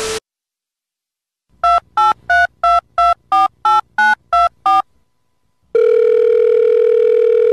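Telephone touch-tone dialing: a quick string of eleven keypad beeps, about three a second, followed by a steady dial tone that runs to the end. A brief burst of static comes at the very start.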